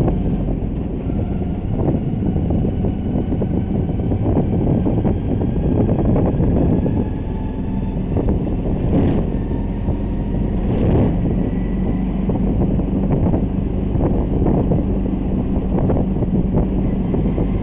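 Ride noise from a moving road vehicle: steady engine and road noise with wind buffeting the phone's microphone.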